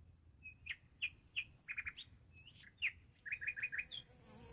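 Bird chirping: a string of short, sharp chirps with two quick trills of repeated notes, one of three notes and a later one of about five.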